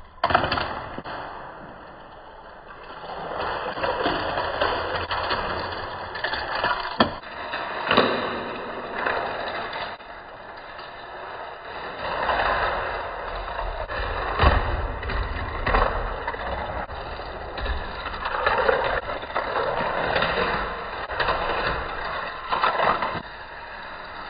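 Die-cast Hot Wheels cars rolling and rattling along plastic Hot Wheels track, in repeated swells a few seconds long, with several sharp clicks and knocks along the way.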